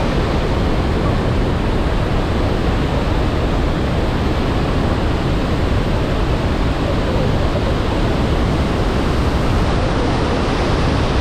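Iguaçu Falls at the Devil's Throat: a huge volume of falling water making a loud, steady, unbroken rush, heaviest in the low range.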